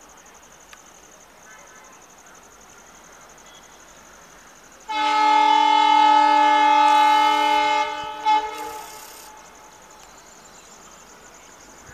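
Locomotive horn of a passenger train sounding one long chord-like blast of about three seconds, then a short second toot, as the train sets off from the station.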